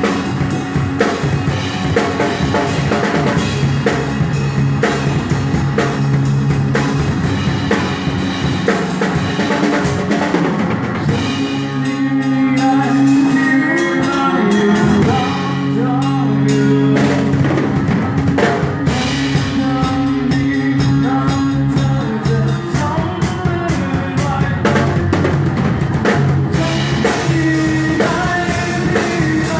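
Rock band playing live, a full drum kit pounding steadily under bass and other instruments, with singing in places.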